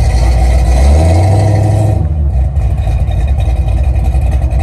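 A car engine running loud and close, revving up briefly about a second in and dropping back to a steady run.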